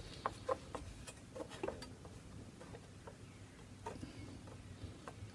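Faint, irregular light clicks and taps from hands handling small wooden model parts and a square against a cant frame, several in the first two seconds and a couple more later.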